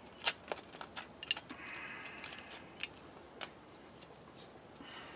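Light metallic clinks and rattles of a rusted, flaking brake dust shield being handled against the front steering knuckle, a few sharp clicks over the first three and a half seconds, then quieter.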